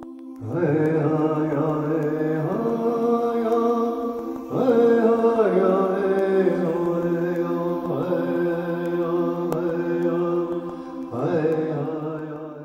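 Music: a chanted vocal line over a steady held drone, sung in about five phrases that each open with a rising swoop in pitch.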